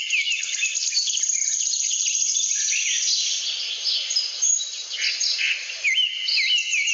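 A chorus of songbirds chirping and calling over one another, many short notes sweeping up and down in pitch, with a fast, high, even trill for about two seconds near the start.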